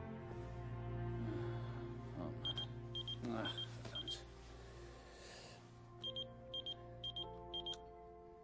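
Mobile phone clipped to a belt beeping for an incoming call: four short double beeps about half a second apart, a pause of about two seconds, then four more, over soft background music.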